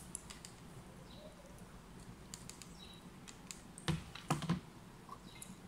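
Small scattered clicks and crinkles from fingers working food out of a leaf wrap while eating by hand, with a few louder thumps about four seconds in as food goes to the mouth.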